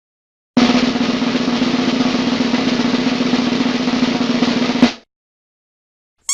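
Snare drum roll sound effect, a fast, even roll of about four seconds that ends on a single sharp hit.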